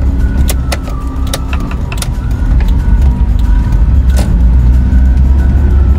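Suzuki Jimny JA22W's small three-cylinder engine and drivetrain, heard from inside the cabin as the car pulls out and drives off, with a heavy low rumble. Several sharp clicks or rattles come in the first two seconds and once more about four seconds in.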